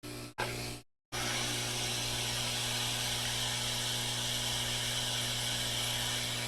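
Hot air rework station blowing steadily: an even hiss over a constant low electrical hum, starting about a second in after a couple of brief cuts.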